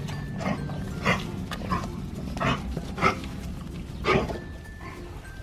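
Siberian husky puppies play-fighting with an adult husky, making short yips and growly play noises about half a dozen times.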